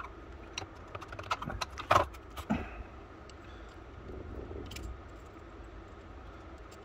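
Small metal clicks and taps of an antique percussion pistol's lock parts being handled and fitted back together. A quick irregular run of clicks fills the first three seconds, loudest about two seconds in, and a few faint ticks come near five seconds.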